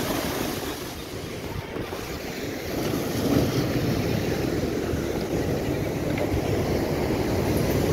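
Storm waves breaking and churning against a sea wall at high tide, a continuous rumbling wash of surf mixed with wind buffeting the microphone; it grows a little louder about three seconds in.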